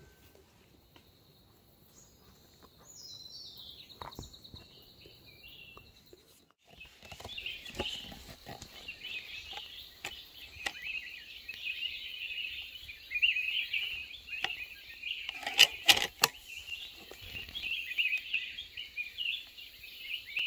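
Birds calling in the tree canopy: a stepped, falling series of high notes a couple of seconds in, then dense high chirping from about seven seconds on. A few sharp clicks sound about sixteen seconds in.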